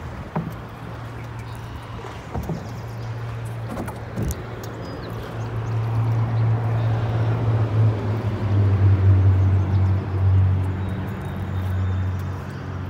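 Road traffic crossing a concrete highway bridge overhead: a low, steady rumble that swells from about halfway through. A few light knocks come in the first four seconds.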